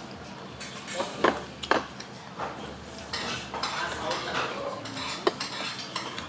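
Cutlery clinking and scraping against dishes at a dining table, with several sharp clinks about a second in, near two seconds and again near the end.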